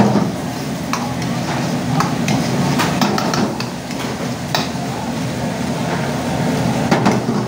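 Paneer chilli frying in a wok over a gas burner: a steady sizzle, with a metal ladle knocking against the wok now and then.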